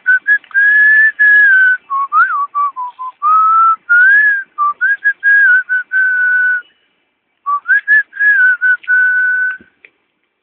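A person whistling a tune: a run of short and held notes, a brief pause about seven seconds in, then a second phrase that stops near the end.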